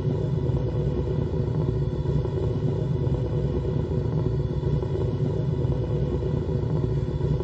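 Live electronic noise music: a steady, dense low rumbling drone with faint sustained tones above it.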